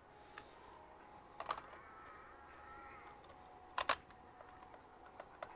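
A few sharp clicks and taps of small hard parts being handled while a laptop is worked on, the loudest a quick double click about four seconds in. A pet bird gives a soft wavering whistle in the background partway through.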